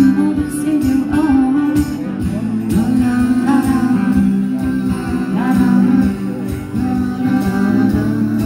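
Live band playing with no vocal line: a strummed mandolin and electric guitar over bass and drums.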